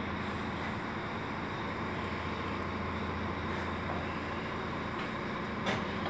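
Steady low mechanical hum with a steady noise over it, and a single short knock near the end.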